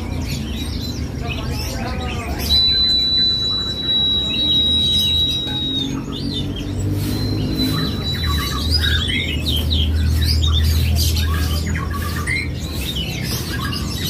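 Caged songbirds chirping. Among them is a small Lombok flowerpecker (kemade Lombok) singing an unbroken rolling trill like a white-eye's. A high, steady whistle is held for about three seconds, then again more briefly.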